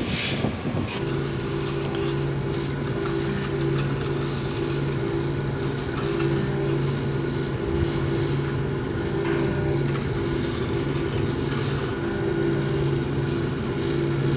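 Ship's deck crane running steadily as it hoists the embarkation ladder on its hook. The hum starts about a second in and holds an even pitch, swelling and easing slightly.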